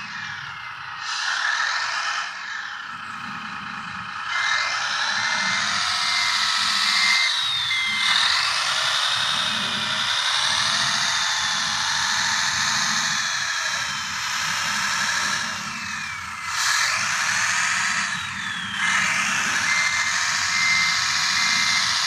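Radio-controlled Wedico model wheel loader working, its electric motors and hydraulics whining with falling and wavering pitch, and a steady pulsing beep sounding a few seconds in and again near the end.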